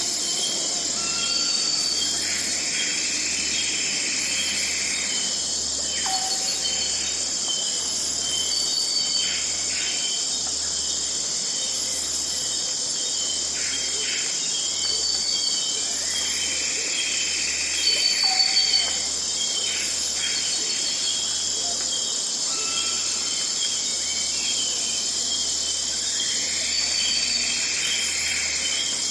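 Dawn rainforest ambience: a dense, steady chorus of crickets and other insects with rapid repeated chirps, over which birds call now and then, including a falling whistle about every twelve seconds and longer arching calls.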